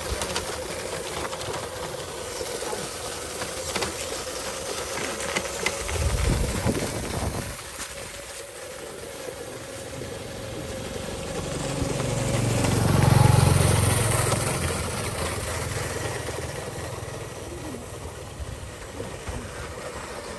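Radio-controlled model truck's electric motor and gearbox whining steadily as it drives and tows a trailer over a dirt track. A louder low rumble swells and fades around the middle.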